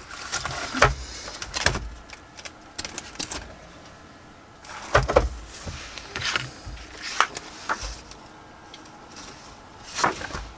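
Paper being handled on a craft table: intermittent rustling and sliding of sheets with light knocks, in short clusters with quieter gaps between.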